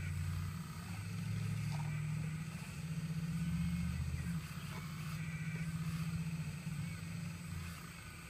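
Excavator engine running, its pitch stepping up and down as it works, then dropping away near the end.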